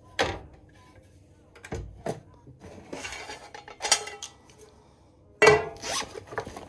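Kitchen handling sounds at a gas range: a glass stove cover lifted off and a frying pan with a fork in it set on the burner grates, giving a string of sharp knocks and clatters, the loudest about five and a half seconds in. Near the end comes the rustle of a soft cooler bag being opened.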